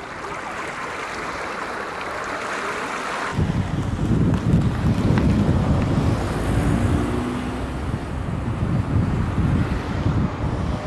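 Small waves washing on a pebble shore as a steady hiss, cut off abruptly about three seconds in by low, gusting wind buffeting the microphone.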